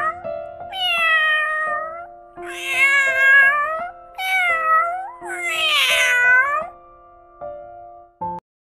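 A cat meowing four times, long drawn-out meows that bend up and down in pitch, over soft background music with held notes that carries on quietly after the meows stop.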